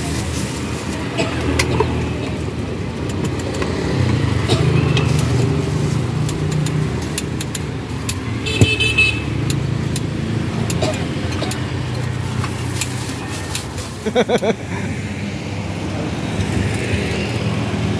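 Steady rumble of road traffic, cars and motorcycles passing close by, with light clicks and rustling as plastic bags of food are handled.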